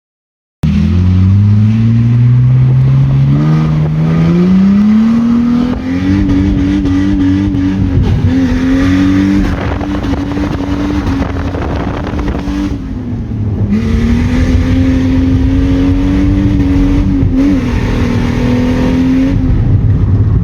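Car engine under hard throttle: starting abruptly, the revs climb over about five seconds, then hold high with small wavers, dipping briefly about a third of the way through and again near two-thirds.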